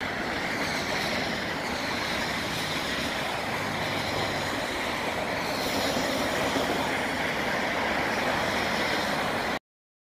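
Steady, loud rushing noise with no distinct events, cutting off abruptly near the end.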